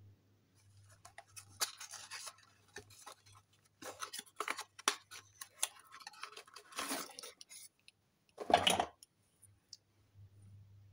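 Hands opening a small cardboard product carton and taking out a serum bottle: irregular scrapes, rustles and clicks of the carton flaps, with the loudest rustle near the end, over a faint steady low hum.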